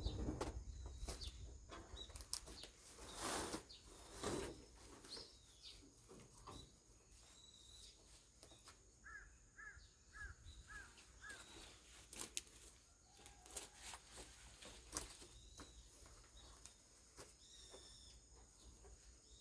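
Faint rustling and scattered knocks and clicks, loudest in the first few seconds. A bird calls a quick run of five short chirps a little after nine seconds in, with fainter high chirps from birds now and then.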